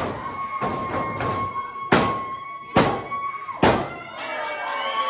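Three heavy thuds on a wrestling ring's canvas mat, about a second apart, over a steady high held tone that stops at the third thud.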